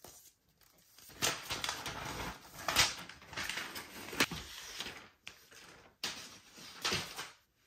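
Rustling and crinkling of the new iPad Pro's protective wrap as the tablet is handled and turned over, in irregular spurts with a few sharper crackles, starting about a second in and stopping shortly before the end.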